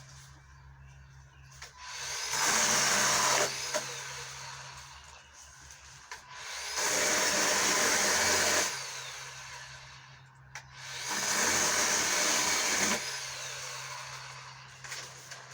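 24-volt electric chainsaw with a 10-inch bar cutting branches in three bursts: the motor spins up and the chain cuts loudly for a second or two each time, about a second in, about seven seconds in and about eleven seconds in.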